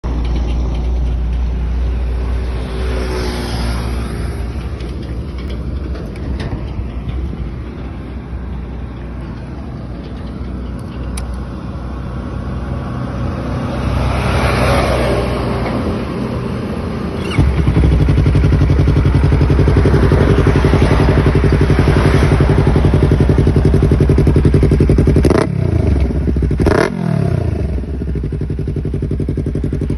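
Yamaha YZF-R3's parallel-twin engine running through an Akrapovic exhaust, idling steadily, then markedly louder from a little past halfway. Near the end there are two quick throttle blips, each falling back fast, before it settles.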